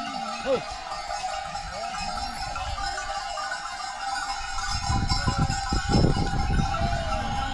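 A mixed flock of goats and sheep bleating, many short calls overlapping, over a steady high drone. A stretch of low rumbling comes in about five seconds in.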